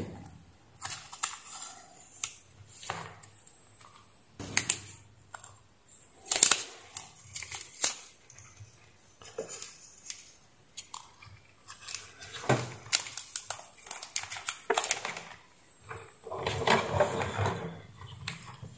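Handling noise from wires, alligator clips and paper tape: irregular clicks and rustles as the clip connection on the mains leads is wrapped in tape, with one louder click about six seconds in.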